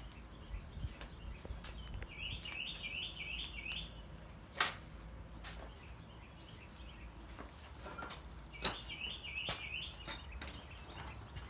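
A songbird singing the same phrase twice: a thin high whistle, then a quick run of about six rising notes. A couple of sharp clicks stand out, one midway and one near the second phrase.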